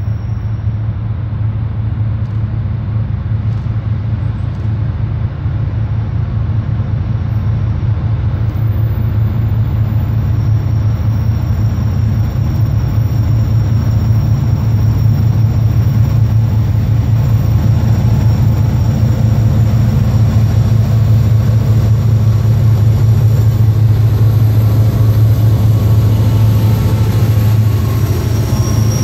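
Several Norfolk Southern diesel freight locomotives approaching, a steady low engine drone that grows louder as the lead units draw near and reach the camera near the end.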